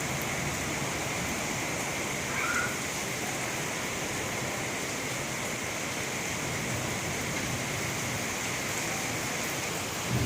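Heavy rain pouring steadily, a dense, even hiss.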